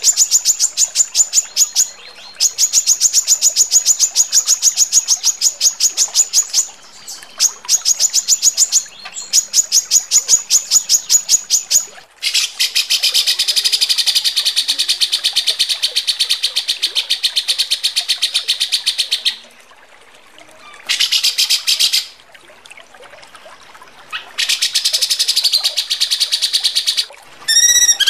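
Recorded songbird calls of the harsh 'tembakan kasar' type used in masteran tutor tracks. A high, fast rattling trill of about ten clicks a second is broken by a few short pauses. Then comes a long, dense, buzzing rattle of about seven seconds, and shorter buzzy bursts and a couple of sharp falling notes near the end.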